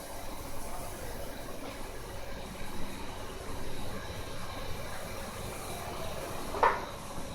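Steady running noise of an industrial biomass burner and boiler plant, with one brief, sharp, louder sound near the end.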